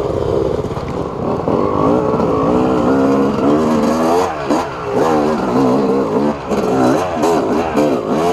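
Yamaha YZ250 two-stroke single-cylinder engine revving up and down as the dirt bike is ridden on a trail, the throttle rolled on and off again and again, pitch rising and dropping several times.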